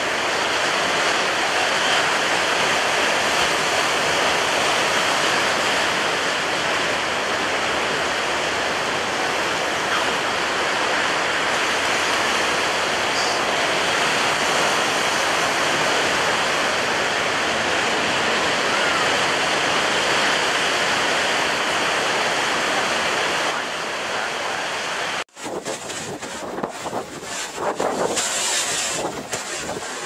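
Rough, storm-whipped sea: a steady rush of breaking waves and wind. About 25 seconds in it cuts abruptly to a different recording, an uneven, gusty rush of surf with wind buffeting the microphone.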